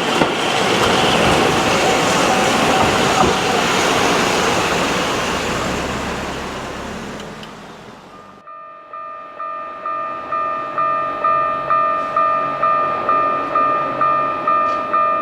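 A train running past on the rails, its noise dying away over about eight seconds. Then a Japanese level-crossing warning alarm starts its kan-kan ringing, a repeating two-tone ring a little under two strikes a second.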